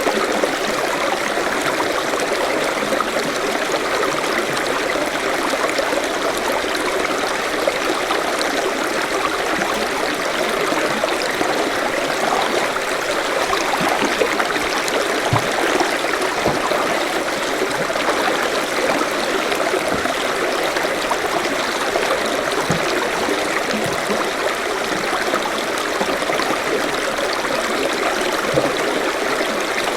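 Forest stream flowing steadily, water running and burbling over rocks with small splashes and trickles.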